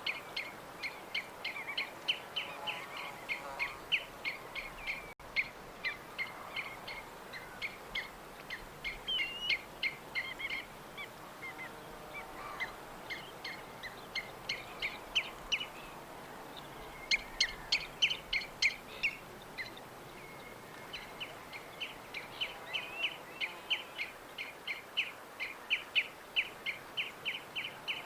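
Small birds chirping: a steady stream of short, high chirps from several birds overlapping, with a louder flurry of calls about two-thirds of the way through.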